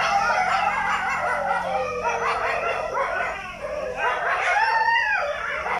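Dogs whining and howling: several overlapping wavering cries that rise and fall in pitch, with no break between them.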